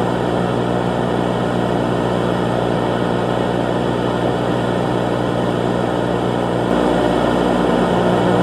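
A steady droning hum over an even rushing noise, getting slightly louder about two-thirds of the way through.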